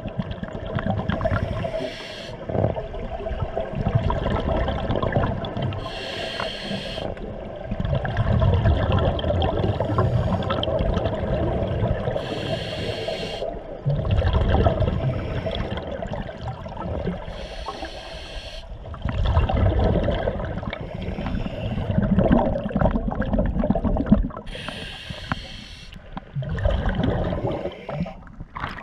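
Scuba diver breathing through a regulator underwater: a short hiss on each inhale alternates with the low bubbling rumble of each exhale, in a slow repeating cycle of several seconds.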